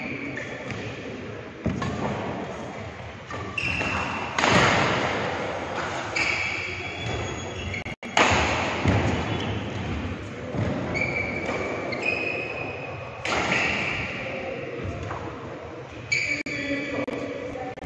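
Badminton rally in a reverberant sports hall: a series of sharp racket hits on the shuttlecock, the loudest about four and a half and eight seconds in, with short shoe squeaks and footfalls on the court.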